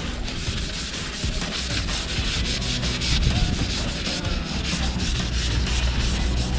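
Tissue rubbing over a motorcycle part in quick, continuous back-and-forth strokes, working in a black restoring liquid.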